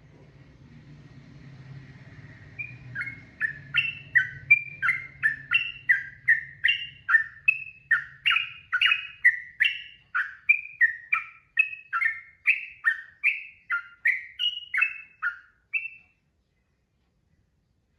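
Yellow-vented bulbul (trucukan) singing a long unbroken run of quick chirped phrases, about two to three a second. The run starts a few seconds in and stops about two seconds before the end. A faint low hum sits under the opening seconds.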